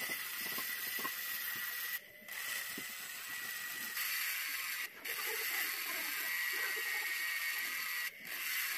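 Homemade mini engraving drill, a small salvaged DC motor in a PVC pipe housing with a brass chuck, running with a steady high whine while its fine bit scratches into steel. The sound cuts out briefly three times.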